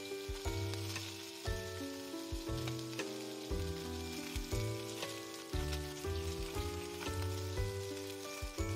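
Food sizzling as it fries in a small square frying pan, a steady hiss under light background music with a regular bass note about twice a second.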